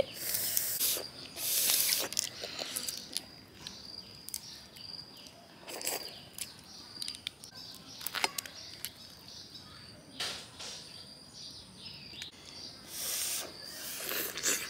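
Crayfish being eaten by hand: short hissing slurps and sucks at the shells and sauce, the loudest near the start and again a little before the end, with a few sharp clicks as the shells are pulled apart.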